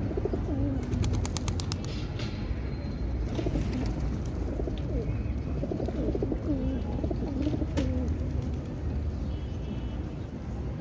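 Pigeons cooing: low, warbling coos repeated several times, over a steady low background rumble. A quick run of faint clicks sounds about a second in.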